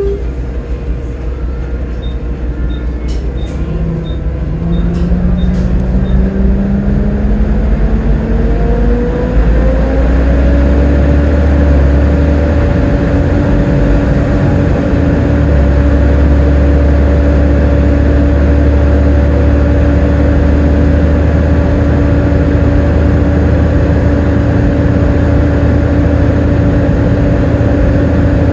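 Volvo B7TL double-decker bus's engine and driveline pulling away. A whine climbs in pitch for several seconds, then holds steady as the bus cruises. A light ticking, about two a second, is heard during the first few seconds.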